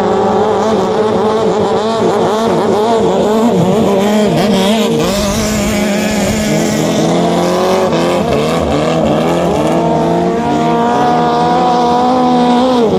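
Engines of racing longtail boats running flat out as the boats speed past, a loud steady engine note with a second engine climbing in pitch about halfway through. Near the end the engine note drops sharply.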